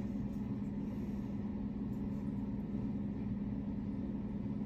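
Steady low hum of room background noise, unchanging throughout.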